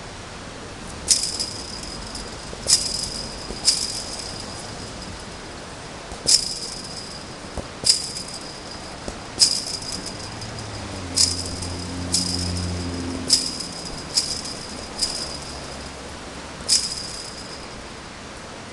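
Soccer ball kicked repeatedly against a chain-link fence: about a dozen sharp strikes a second or two apart, each setting the fence wire ringing with a brief metallic rattle.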